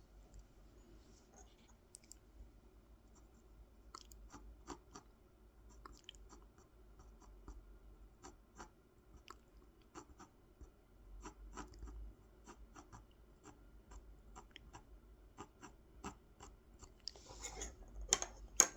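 Faint scratching of a pencil drawing on a small wooden honey dipper, with many small irregular ticks and strokes, growing a little louder and denser near the end.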